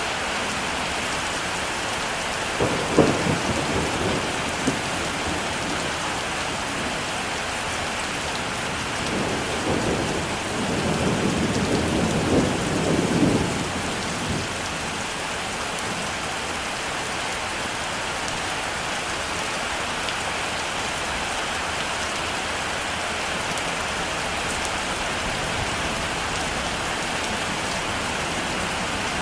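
Heavy rain falling steadily on open countryside, with thunder twice: a sharp clap about three seconds in that rolls off over a couple of seconds, then a longer rumble from about nine to fourteen seconds in.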